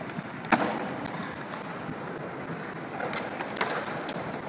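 Wind on the microphone over open-air ambience, with one sharp knock about half a second in. Near the end come a few lighter knocks as the BMX bike clatters on the concrete while the rider bails off it.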